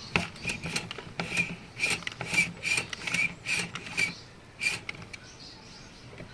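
Hard parts of a fuel pump module being rubbed and worked by hand: a series of about a dozen short scraping strokes with a squeaky edge, roughly two a second, ending about five seconds in, with a few lighter clicks at the start.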